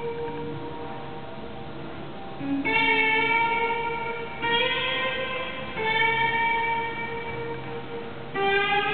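Figure skating program music played over a rink's sound system: a slow melody of long held notes, a new note coming in every one and a half to three seconds and fading as it is held.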